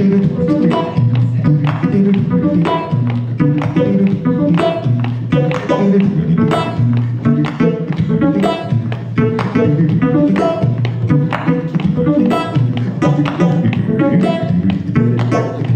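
Solo a cappella vocal improvisation into a handheld microphone: one singer alternates deep, bass-like notes with higher sung notes in a steady rhythm, while tapping his chest with his hand for percussion.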